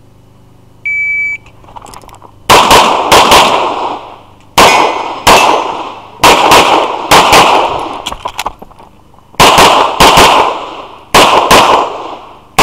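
Electronic shot timer gives a short, steady high beep, the start signal, and about a second later a handgun opens fire: a fast string of shots, mostly in quick pairs, each trailing off in an echo.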